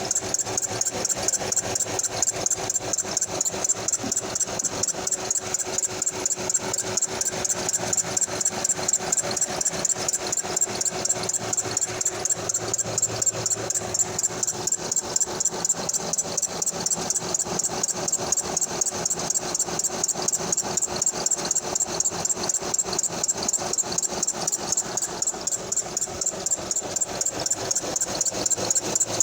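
2005 Honda Odyssey V6 engine idling with a fast, steady, rhythmic ticking knock from the front belt drive. This is the horrible noise that began after work on the alternator, which the owner puts down to the serpentine belt.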